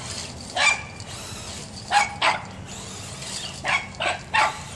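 Small dog barking: six sharp barks, one alone, then a quick pair, then three in a row near the end.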